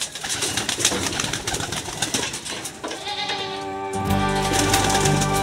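Racing pigeons in a loft cooing and shuffling, with many sharp clicks. About three seconds in, music fades in, and it is loud from about four seconds on.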